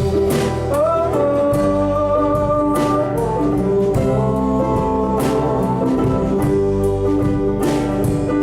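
Live band playing an instrumental passage of a song, guitars, bass and drums, with a lead line that slides up about a second in and then holds long notes. A few cymbal crashes fall through it, one near the end.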